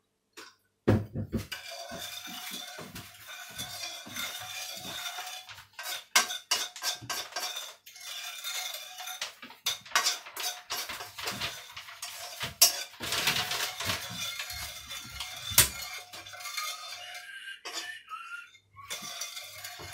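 Metal spoon stirring a dark chili noodle sauce in a frying pan, scraping and clinking against the pan over and over, with several louder clanks along the way.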